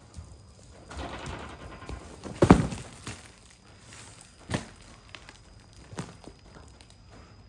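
A large parcel wrapped in packing tape is set down on a concrete floor with one loud thump about two and a half seconds in, after a second or so of rustling wrapping. A few lighter knocks follow as hands handle the box.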